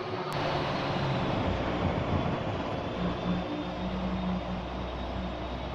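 Table saw running with its blade cutting a walnut board fed along the fence, a steady loud whir with a low hum that grows stronger as the cut goes on.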